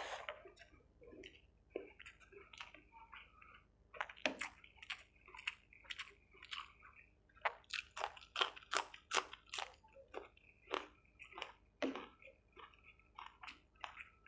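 Close-miked mouth sounds of eating chicken curry with rice: wet chewing with sharp crackles and smacks, about two to three a second, thickest in the middle.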